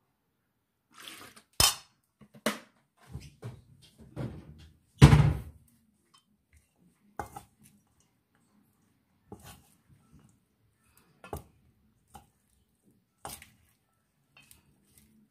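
A metal spoon and a wooden spatula knocking and clinking against a stainless steel mixing bowl as a thick vegetable batter is tossed. The knocks come scattered, every second or two, and the loudest is a heavier thump about five seconds in.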